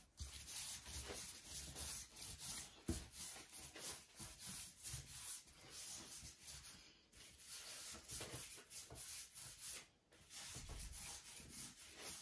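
Dough being rolled out thin by hand on a work surface: soft, irregular rubbing strokes with short pauses.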